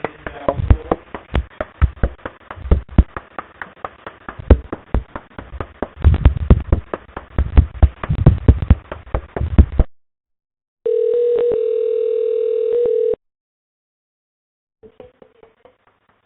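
Telephone line audio: dense, irregular clicking and crackling with low thumps for about ten seconds, then it cuts off. After a second of silence a steady single telephone line tone sounds for about two seconds.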